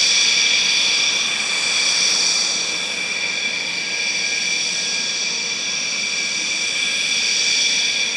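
Rafale M fighter's twin Snecma M88 jet engines running with a steady high-pitched whine, easing off a little after about three seconds.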